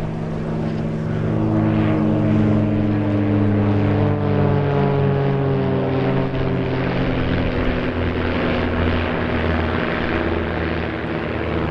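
A formation of three aerobatic biplanes (a Pitts S-1 Special, an Ultimate 10-300 and a Christen Eagle II) flying overhead, their piston engines and propellers droning together. Several engine tones sound at once, some sliding slowly down in pitch midway through.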